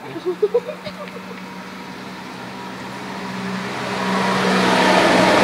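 A motor vehicle approaching: its engine and road noise grow steadily louder from about two seconds in and stay loud, over a steady low hum.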